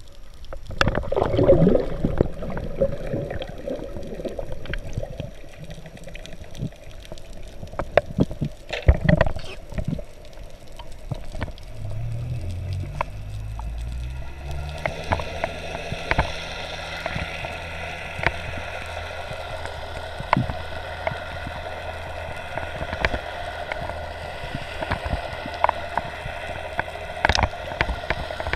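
Underwater sound picked up by a speargun-mounted camera on a freedive: water gurgling and swishing against the housing, with scattered sharp clicks and knocks. About halfway in, a steady hum with several held tones joins it and runs on.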